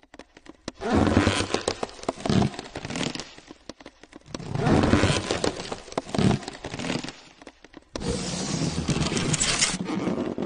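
Crackling, scraping sound effects in three swells, full of small sharp clicks; the third, starting about eight seconds in, is a steadier hiss.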